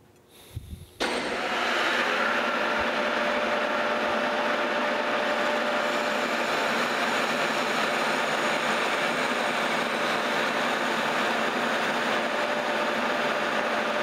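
Metal lathe starting up about a second in and running steadily while a parting tool cuts off a turned metal pin.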